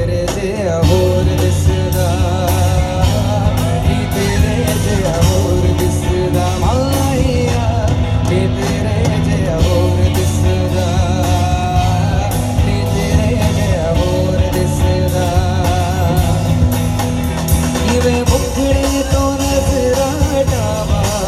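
Live rock band playing loudly through a PA: distorted electric guitars, bass and a drum kit keeping a steady beat, with a voice singing a wavering melody over them.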